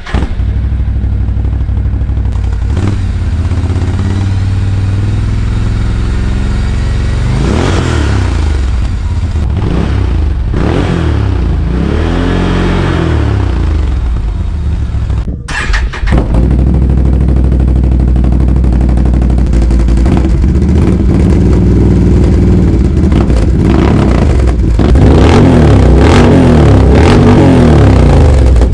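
Can-Am Outlander 1000 ATV's V-twin engine running through an RJWC aftermarket exhaust with its silencer insert fitted, idling steadily and revved up and down several times in the first half.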